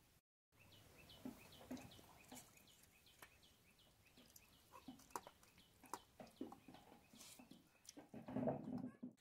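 Faint sounds of eating rice by hand from steel plates: fingers working rice and fish curry, with small clicks on the plates and a louder cluster of eating noise near the end. A small bird chirps quickly over the first few seconds, a short falling note about three times a second.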